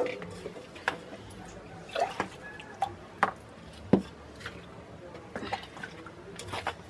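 A few separate sharp clinks and knocks of steel bowls and utensils, about a second apart, with liquid dripping and slopping as a cup is lifted out over a bowl of wet cow-dung slurry. This is the hand-mixing of jeevamrut ingredients: gram flour and jaggery are about to be wetted and mixed.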